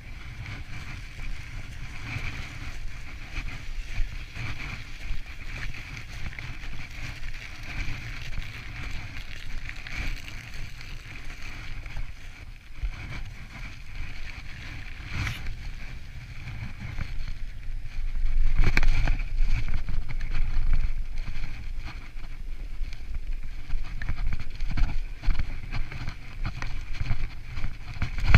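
Mountain bike ridden over snowy ground: a steady low rumble of tyres and wind on the microphone, with scattered knocks from the bike. It gets louder from about eighteen seconds in.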